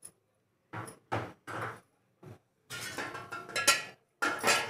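A metal spoon knocking and scraping against a metal cooking pot in a series of short clinks, with a louder ringing clang near the end.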